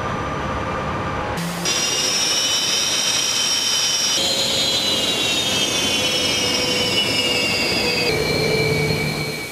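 Fighter jet engines: a steady afterburner roar, then, after a cut, a high turbine whine of several tones together. The whine slides slowly down in pitch from about four seconds in and drops a step near the end.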